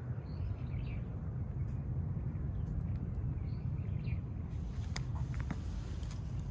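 Outdoor ambience with a steady low rumble throughout, over which small birds chirp faintly twice. A few sharp clicks come near the end.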